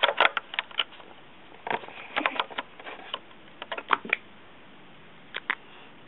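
Small sharp plastic clicks and taps from an iPod Touch being handled and pushed into its plastic dock, in several quick groups with short pauses between.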